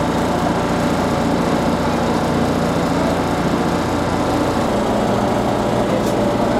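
Diesel engine of the Kiha 1 light-railway railcar, running steadily as heard inside its cab. Its low hum changes note about two-thirds of the way through.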